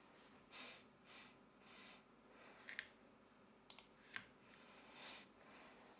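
Faint clicking at a computer: a few soft noises, then several sharp single clicks spread out, about one every half second to a second.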